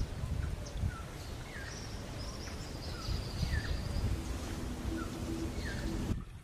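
Small birds chirping in short, falling notes about once a second, with a higher thin trill in the middle, over a rumble of wind on the microphone. A faint steady hum comes in near the end, and the sound changes abruptly just before the end.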